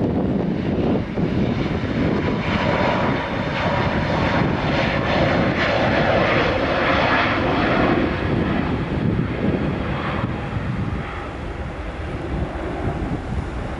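Airbus A320neo's twin turbofan engines at take-off thrust as the airliner accelerates down the runway and lifts off. The noise swells to its loudest mid-way as the jet passes and thins out near the end.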